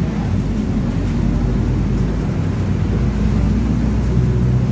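Mercedes-Benz OF-1721 bus heard from inside the cabin while driving: a steady diesel engine and driveline drone. It carries the growl from the differential that the title names as the bus's fault.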